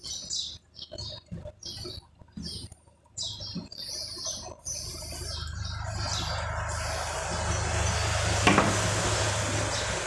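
Birds chirping repeatedly, with quiet rustling as enamelled copper coils are handled and pressed into a stator's slots. From about halfway, a steady noise with a low hum swells up underneath, and a single sharp click comes near the end.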